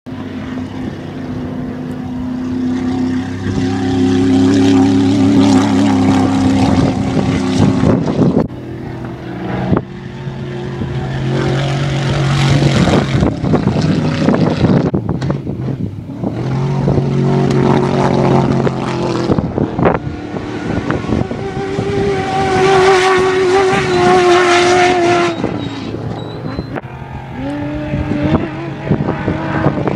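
Off-road race vehicles passing one after another at speed, their engines revving with the pitch rising and dropping; each pass swells and fades, about five in all.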